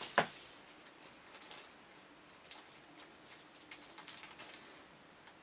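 A pack of papers being handled and opened by hand: a sharp click just after the start, then light, scattered rustling and small ticks of paper and packaging.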